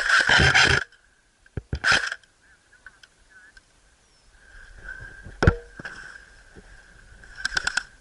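Airsoft gunfire exchanged during a firefight: scattered single sharp cracks, then a quick burst of about four shots near the end. A loud noisy burst, probably rustling or movement close to the microphone, fills the first second.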